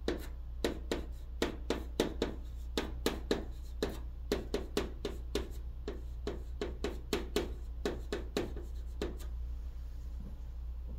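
Chalk writing on a chalkboard: a quick series of short scratching and tapping strokes as characters are written, stopping about nine seconds in.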